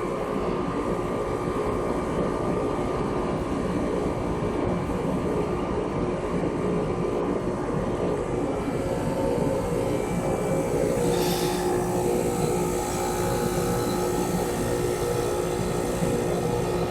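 Carrier 25HBC 4-ton heat pump outdoor unit running through a defrost cycle: a steady mechanical drone with a few held hum tones. There is a short hiss about eleven seconds in.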